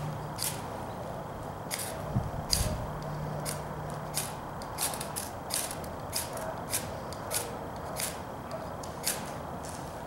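Knife scraped down a ferrocerium (ferro) rod again and again to throw sparks onto a bird-nest tinder bundle: about fifteen short, sharp scrapes, roughly one every half second to second.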